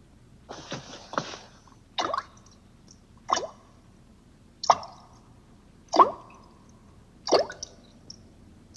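Single water droplets dripping, one sharp plop with a short pitched ring about every second and a third. Near the start there is a softer, splashier pair of drops.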